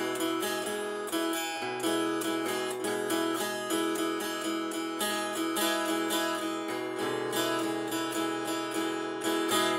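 Acoustic guitar strummed with a pick in a steady rhythm, changing chords a couple of times.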